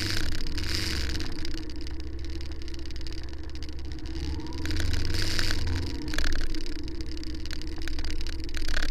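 Motorcycle engine running at low revs as the bike rolls slowly, with a steady low hum that swells briefly about five and six seconds in.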